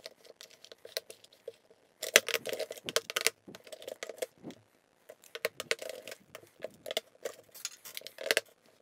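Plastic eyeshadow palettes and compacts clicking and clacking as they are set down one after another on a marble countertop, in quick irregular bunches.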